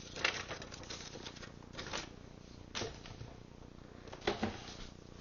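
Laserdisc box set and its cardboard disc jackets being handled: faint scattered rustles and light taps, with a few sharper knocks about two, three and four seconds in.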